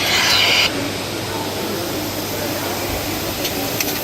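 A loud hiss of air that cuts off under a second in, then a steady background din with a low hum and a few faint clicks near the end.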